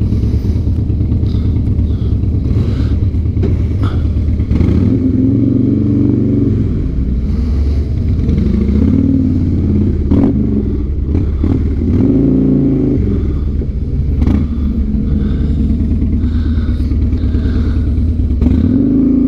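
2007 Harley-Davidson Night Train's Twin Cam 96 V-twin running as the bike pulls away and rides at low speed. The revs rise and fall several times as it goes up through the gears, with a couple of sharp clicks about halfway through.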